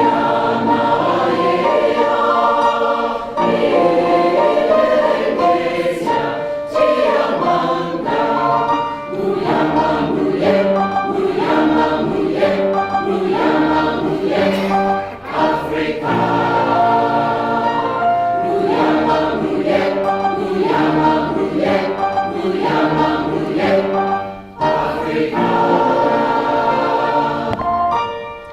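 A community choir singing a song in full voice.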